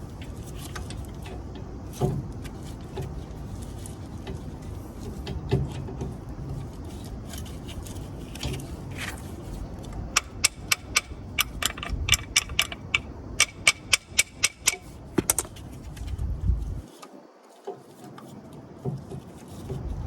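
Work on a car's front brake caliper: a run of sharp metallic clicks, about three a second, for several seconds, with scattered single knocks and a thud, over a steady low background rumble.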